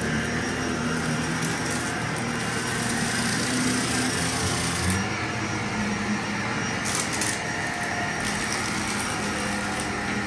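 Vacuum cleaner running steadily with an even motor hum, its pitch shifting slightly about five seconds in, with brief hissy flares of airflow around seven seconds.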